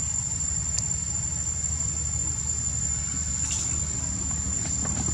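Insects trilling with one steady, high-pitched, unbroken tone, over a constant low rumble.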